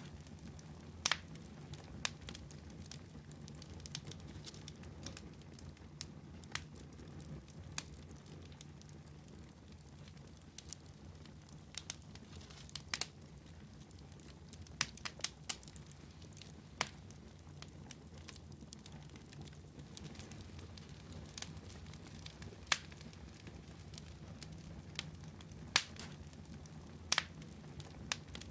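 Fire burning in a fireplace: a low steady rumble with sharp crackles and pops at irregular intervals, a few seconds apart.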